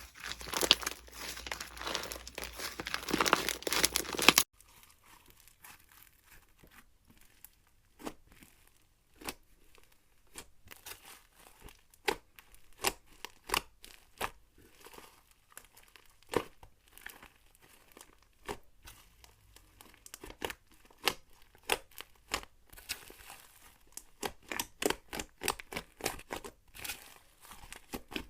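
Slime being squeezed and worked by hand. At first it gives a dense, loud crackling crunch, which stops abruptly about four seconds in. Then come scattered sharp clicking pops, a few a second at most, which bunch into quicker runs near the end.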